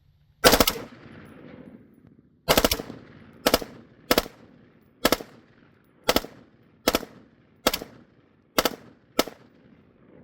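Rifle with a Rare Breed FRT forced-reset trigger firing in rapid strings of shots: about ten short bursts, the first and longest about half a second in. Each burst is followed by a short echo.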